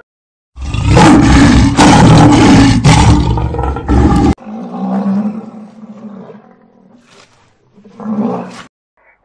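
Lion roaring loudly for almost four seconds, then cutting off suddenly. A quieter, low-pitched rhinoceros call follows and swells briefly near the end.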